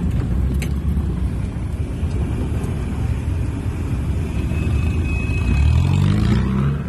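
Willys Jeep's four-cylinder engine running while the jeep drives over rough ground, its pitch rising near the end as it revs up.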